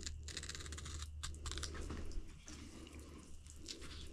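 Outdoor Edge knife cutting through the coarse hair and hide of a wild hog being skinned: a faint, rapid, dry crackle of the hair ripping.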